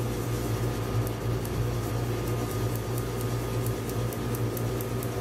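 Steady low electrical hum with a thin high whine over it, and faint, quick scratchy strokes of a blending brush working dye ink into paper, about three or four a second.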